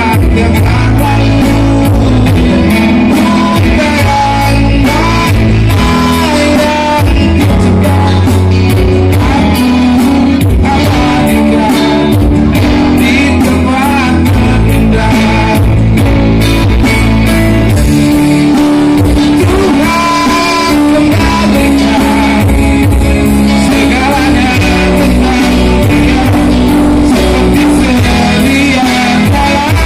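A song: a singer's voice over instrumental backing with a steady beat.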